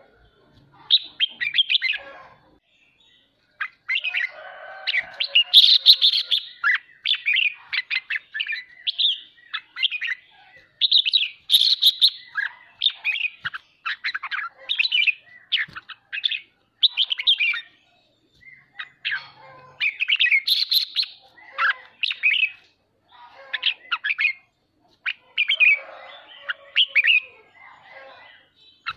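Caged red-whiskered bulbul singing in rapid bright phrases mixed with harsher chattering notes, in bursts broken by two brief pauses.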